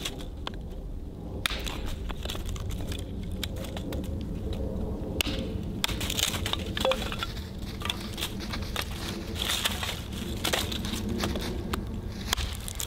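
A hatchet splitting kindling on a tree stump: repeated irregular chops and the crack and crunch of dry wood splitting apart.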